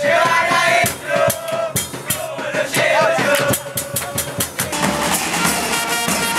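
Music with a drum kit beat, snare and bass drum, and a melody line over it in the first half.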